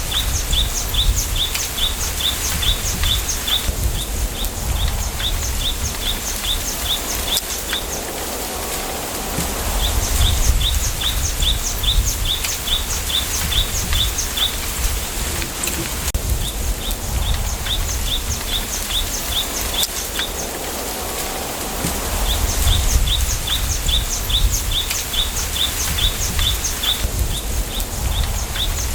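A small bird repeating short, high, slightly falling chirps, about four a second, in runs of several seconds with short breaks. Underneath is a steady rustle of bamboo leaves in the wind, with gusts of low wind rumble swelling and easing.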